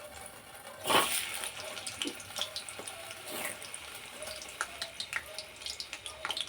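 Food frying in oil in a pan, with scattered crackles and a louder clatter about a second in.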